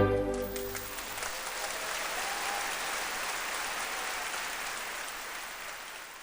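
Audience applauding, a dense steady clapping that tapers slightly near the end, as orchestral string music dies away in the first second.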